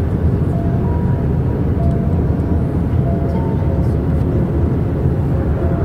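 Steady low rumble of airplane cabin noise, the engines and airflow heard from inside the cabin during flight. Faint sustained musical notes sound over it now and then.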